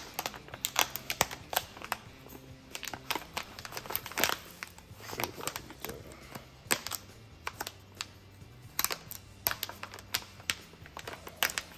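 Plastic bag of gold paydirt being handled and pulled at to tear it open: irregular sharp crackles and clicks of the plastic, with no steady rhythm.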